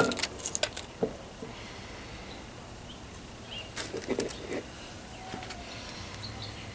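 Light clicks and taps of a circuit board and small hand tools being handled on a tabletop: a few near the start, a short cluster about four seconds in, and quiet between.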